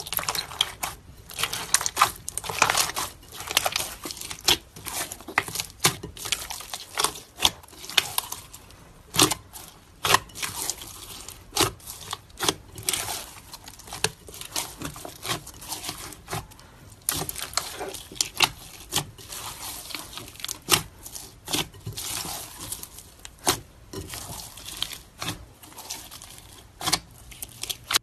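Hands pressing and squishing clear slime mixed with white crunchy clumps: a dense, irregular run of crackles and pops, several a second.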